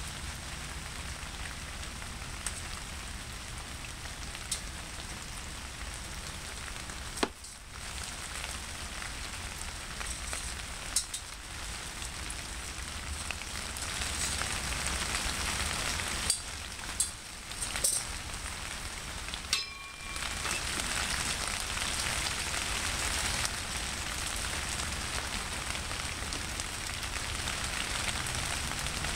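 A steady hiss with a low hum underneath, louder in the second half, and a few sharp clicks.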